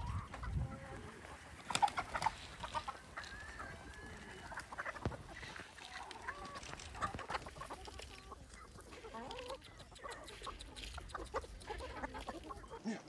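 A flock of hens clucking and calling, many short calls overlapping one another, with scattered small clicks among them.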